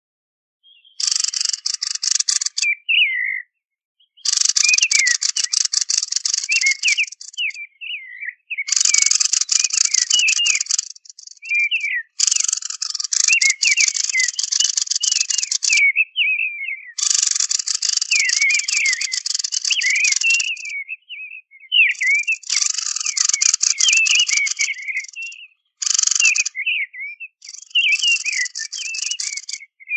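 Recorded song of the bird hunters call kikhen al-lazzab, played as a hunting lure: phrases of a couple of seconds each, repeated with short pauses. Each phrase mixes rapid buzzy chatter with quick twisting whistled notes.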